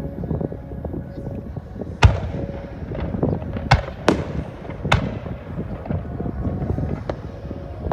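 Aerial fireworks bursting: four sharp bangs between about two and five seconds in, the first the loudest, each followed by a trailing echo, and a fainter bang near the end. A continuous low rumble runs underneath.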